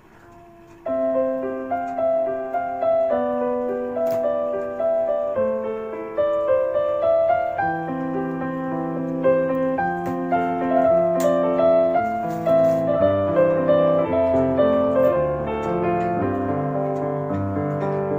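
Piano music, with several notes sounding together in a continuous flowing passage, starting about a second in.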